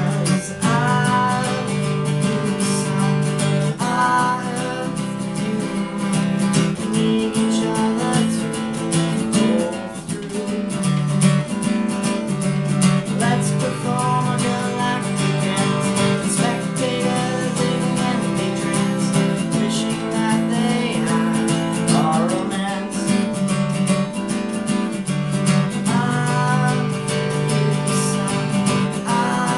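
Steel-string acoustic guitar strummed steadily in chords, with a man singing at times.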